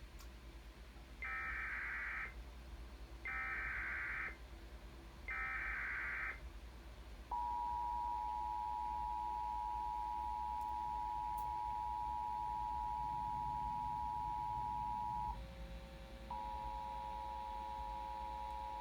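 Emergency Alert System tones: three one-second bursts of SAME header data warble, then the two-tone attention signal, a steady dual beep held for about eight seconds. The attention tone breaks off briefly, then comes back with a lower steady tone beneath it.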